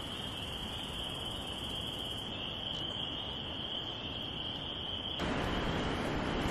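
A steady, high-pitched chorus of calling frogs from the flooded ground. About five seconds in it cuts off and gives way to a louder rushing of wind on the microphone.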